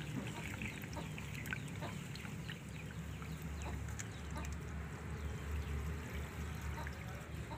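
Fowl clucking on and off, with scattered small knocks and a steady low rumble underneath.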